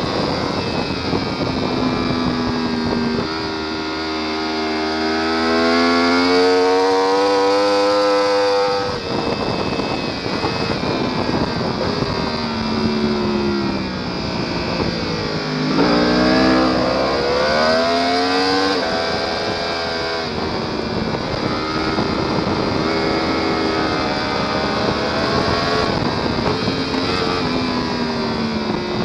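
Sportbike engine at racing speed. It revs up hard from about three seconds in and cuts off sharply around nine seconds, falls in pitch, then revs up again from about fifteen seconds and keeps rising and falling with the throttle. A steady rush of wind runs underneath.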